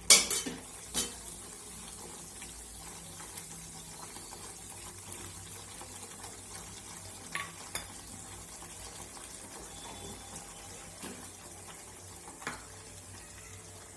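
Kitchen utensils knocking and clinking on a cooking pan, a few sharp clinks with the loudest right at the start and another about a second later, over a faint steady hiss from the pan.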